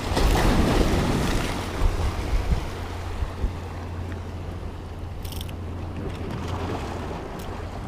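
Rough sea surf washing against a rocky shore, with wind rumbling on the microphone. A louder surge of surf comes at the start and eases into a steadier wash, with a few short knocks between about two and three and a half seconds in.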